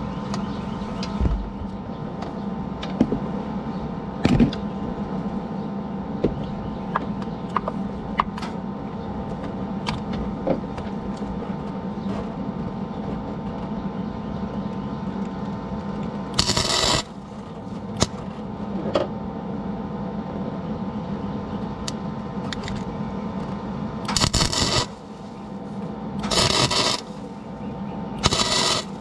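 A steady machine hum under scattered small metal clicks and taps, broken by four short bursts of hissing crackle in the second half.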